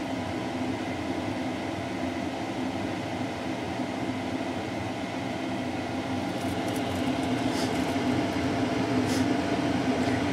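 A steady machine drone with a low hum, with a few faint clicks in the second half.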